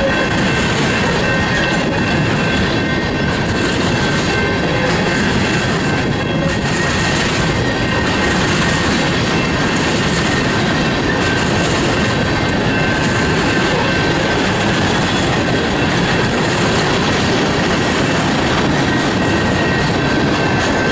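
Coal cars of a BNSF unit coal train rolling past: a steady, loud rumble of steel wheels on rail, with a thin, high, steady squeal from the wheels running through it.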